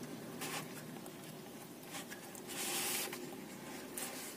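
Steamed, wilted banana leaf rustling faintly as it is rolled up by hand around a filling: a few short rustles, the longest about two and a half seconds in.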